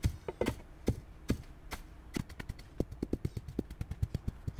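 Hand tamper pounding paver base, its steel plate striking the gravelly base again and again to compact it. Short sharp thuds a few a second, coming faster and more evenly after about two seconds.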